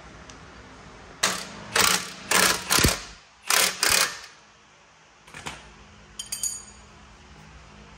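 Hand tools working on the car's suspension bolts: six short bursts of metal clicking, like a ratchet wrench being stroked, then a few faint metallic clicks near the end.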